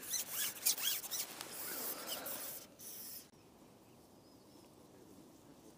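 Dry rustling and scraping as a person moves among dry reed stalks. It stops abruptly about three seconds in, leaving faint outdoor quiet.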